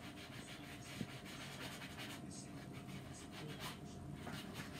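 Sanding sponge scuffing a painted panel in repeated short back-and-forth strokes, a faint scratchy rubbing, to rough up the old paint before repainting.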